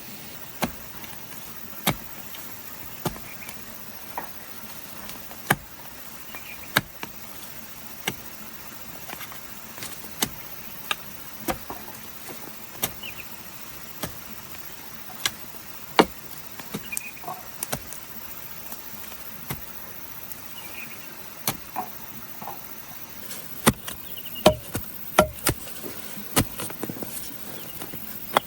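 Irregular sharp knocks and taps, roughly one a second and coming closer together near the end, over a steady background hiss.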